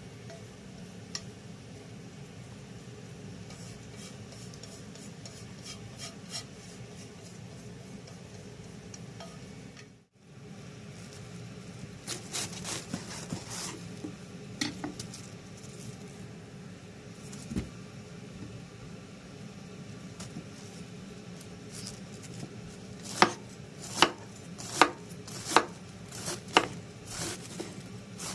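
Kitchen work sounds: scattered light clicks and taps, then from near the end a knife chopping on a cutting board in slow, regular strokes, a little more than one a second, over a steady low hum.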